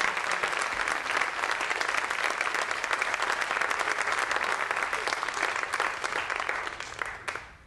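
Theatre audience applauding, many hands clapping in a dense, even patter that thins out with a few last claps near the end.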